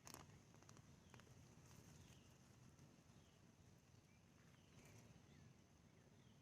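Near silence: faint outdoor ambience with a few soft clicks and faint short chirps.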